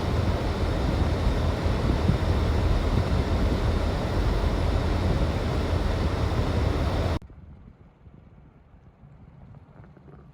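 Steady rushing roar, heaviest in the low end, of wind buffeting the microphone mixed with freeway traffic noise. It cuts off abruptly about seven seconds in, leaving only a faint background hiss.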